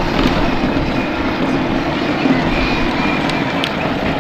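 12-volt Power Wheels ride-on toy motorcycle driving on asphalt: its battery-powered electric drive motors and gearbox whining steadily, with the hard plastic wheels rolling on the pavement.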